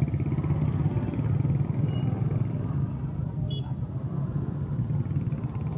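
A motor vehicle's engine idling, a steady low rumble with a fast, even pulse.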